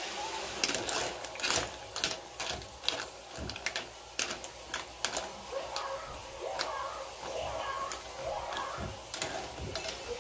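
Metal ladle stirring clams in a pot of boiling broth, the shells clacking against each other and the steel pot in sharp, irregular clicks.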